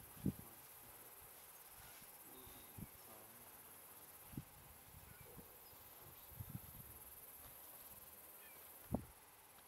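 Quiet open-field ambience: a steady high insect hum, with a handful of brief soft low thumps scattered through it.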